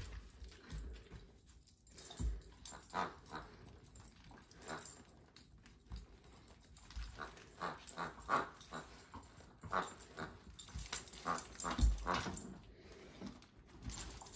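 A dog playing with a plush toy on a hardwood floor: irregular short snuffles and grunts mixed with scuffs of paws and toy, busiest in the second half.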